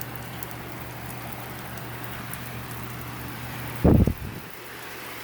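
Heavy rain pouring steadily, with a steady low hum under it. A brief loud low thump nearly four seconds in.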